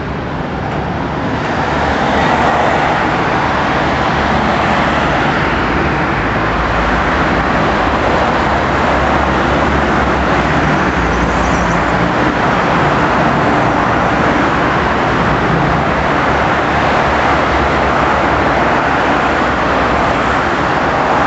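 Steady city road traffic noise, a continuous rush of passing vehicles, growing louder about two seconds in and then holding steady.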